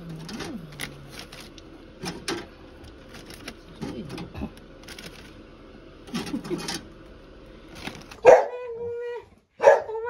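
Dogs eating pieces of dried homemade jerky, with irregular crunching and wavering whines. About eight seconds in comes a much louder, steadily pitched dog call, then a second one shortly after.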